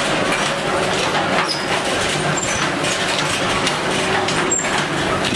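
Automatic paper dona (bowl) making machine running: a steady mechanical noise with a low hum and many small knocks.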